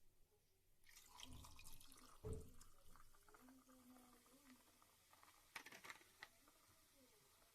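Faint kitchen handling sounds: scattered small clicks and knocks, with a soft thump a little over two seconds in.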